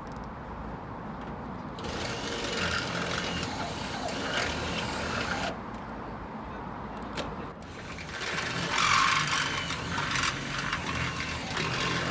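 Power drill boring through metal in two spells of a few seconds each, its motor whining with harsh cutting noise and a short pause between them.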